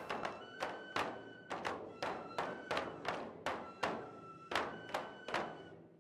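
Large taiko drums struck in a steady festival rhythm, about three sharp strokes a second, with a high melody line held over the beats.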